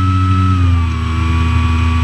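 Light aircraft's piston engine and propeller droning steadily, heard from on board; about half a second in the engine speed drops slightly and the pitch settles lower.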